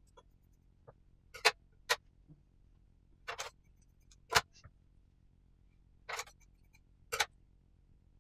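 Scissors snipping through gauze bandage: about six short, sharp cuts spread a second or so apart, a pair close together near the start, with a faint steady low hum underneath.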